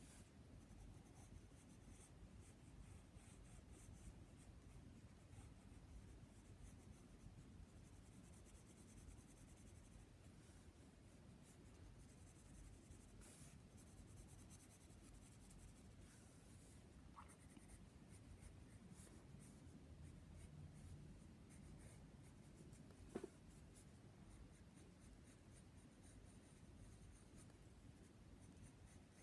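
Faint scratching of a Faber-Castell graphite pencil on paper, in soft continuous shading strokes, with one sharp tap about three quarters of the way through.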